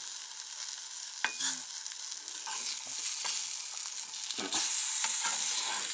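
Floured pink salmon steaks frying in oil in a pan: a steady sizzle that grows louder about four and a half seconds in. Short scrapes and taps of a spatula against the pan come through the sizzle.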